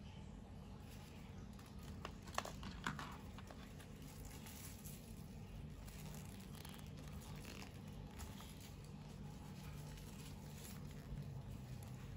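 Faint rustling and crinkling of small plastic wrappers being handled and torn open, with a couple of sharper crackles a few seconds in, over a steady low hum.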